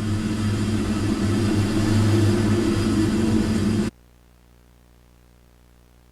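A loud, rumbling drone with steady low hums running under a dense noise, which cuts off abruptly about four seconds in, leaving only a faint low hum.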